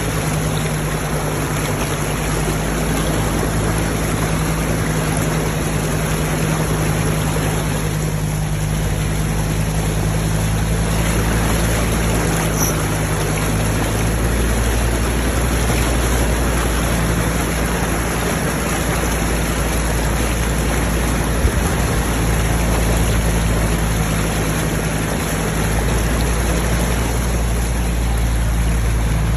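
Land Rover Defender Td5's five-cylinder turbodiesel running at a steady low speed as the front wheel ploughs through deep floodwater, with a constant rush and splash of water from the bow wave and wheel spray. A single brief knock partway through.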